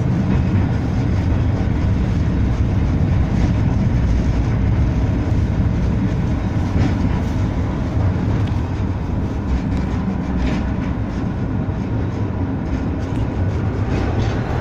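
Blackpool tram no. 715 running along its street track, heard from inside the car: a steady low rumble of wheels and running gear, with a few faint clicks.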